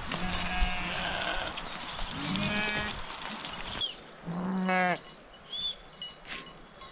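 Sheep bleating: three calls a second or two apart, the last one the loudest. A few faint high chirps follow near the end.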